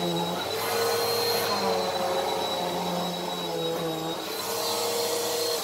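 Bissell PowerForce Helix Turbo Rewind Pet (2692) upright vacuum running on carpet, its 8-amp motor and brush roll giving a steady high whine over a rushing hum. The hum shifts slightly in pitch as the vacuum is pushed back and forth.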